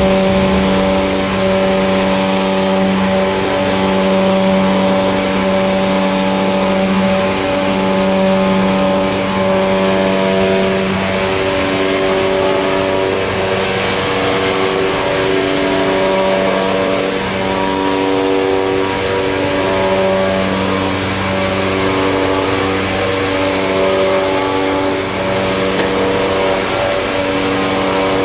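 A motor running at a steady speed: a constant pitched drone with many overtones.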